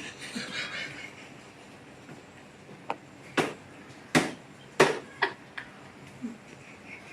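A run of about five sharp knocks, irregularly spaced and loudest near the middle, starting about three seconds in.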